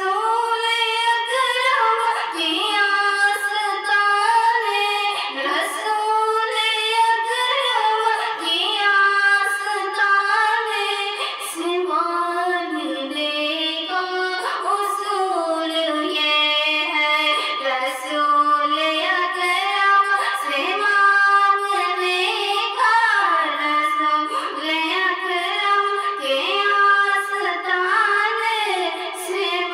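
A high female voice singing an Urdu naat in a continuous, ornamented melody, with no instrument heard under it.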